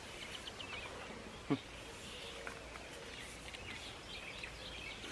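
Quiet rural outdoor ambience with faint bird chirps, and a single brief knock about one and a half seconds in.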